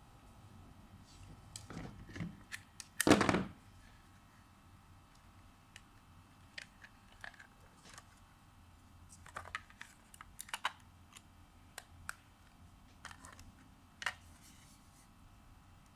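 Small tools and phone parts clicking and tapping during an iPhone 6s Plus battery replacement, in scattered light clicks, with one louder clatter about three seconds in.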